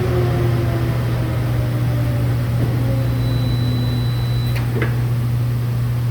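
Heidelberg Eurobind 1300D PUR perfect binder running through a binding cycle: a steady machine hum with a motor tone slowly falling in pitch, a thin high beep lasting about a second and a half midway, then two sharp clicks.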